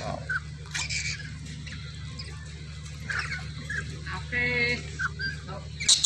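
A flock of lories, mostly black-capped lories, feeding at a fruit trough, giving scattered short squeaks and chirps, with a brief longer pitched call about four and a half seconds in, over a low steady hum.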